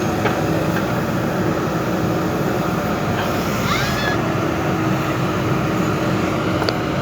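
Backhoe loader's diesel engine running steadily with a constant hum. A short rising squeal cuts in briefly about halfway through.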